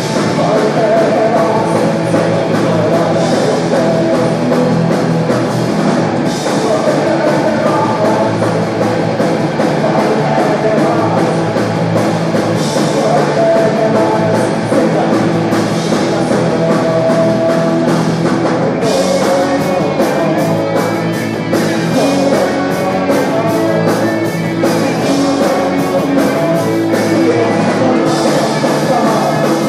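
Live punk-rock band playing a song at full volume: electric guitars, bass and drums, with a man singing. The drumming and cymbals grow busier about two-thirds of the way through.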